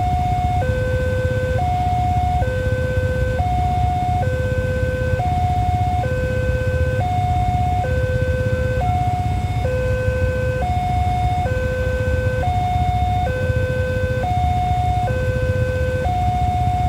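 Railway level-crossing warning alarm sounding: an electronic two-tone signal alternating steadily between a higher and a lower note, each held about a second, warning that a train is approaching. A continuous low rumble runs underneath.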